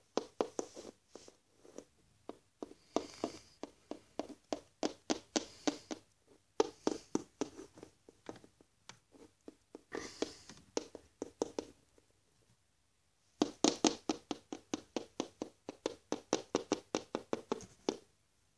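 Plastic toy figurine tapped quickly against a hard surface in runs of light clicks, about five a second, with a few short pauses, mimicking footsteps.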